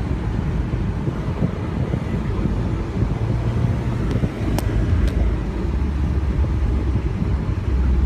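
Car interior noise while driving at low speed: steady engine hum and tyre noise. The engine hum drops lower about five seconds in as the car slows, and a few light clicks come between four and five seconds in.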